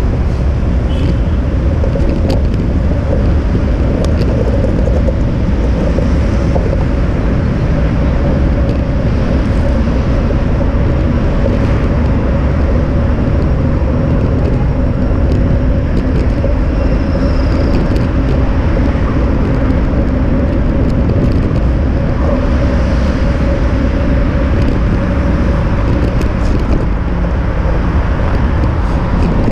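Continuous loud wind and road rumble on an action camera moving along a bike path, with traffic noise and a steady hum throughout.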